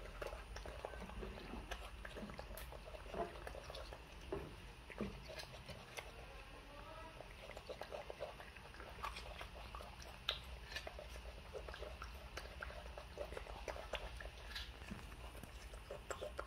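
Pet monkeys eating soft steamed pear: quiet, irregular chewing and mouth sounds with many small clicks.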